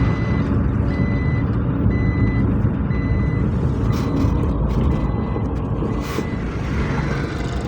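Heavy diesel roadworks vehicle running under load with its reversing alarm beeping, a single high tone about once a second that stops partway through. Two short hisses follow, one about four seconds in and another about two seconds later.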